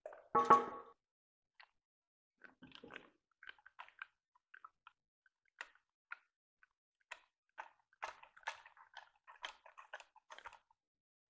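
A heavy cast-iron angle plate clanks against the steel milling-machine table with a short metallic ring, then scattered light metal clicks and taps follow as the crane rigging is worked.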